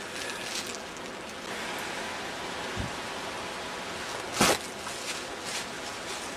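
Steady rush of water running over rocks, with a few light knocks and one sharp thump about four and a half seconds in.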